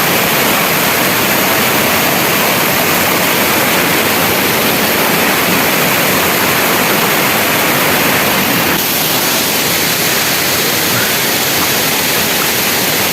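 Waterfall pouring into its plunge pool: a steady, dense rush of falling water, its tone shifting slightly about nine seconds in.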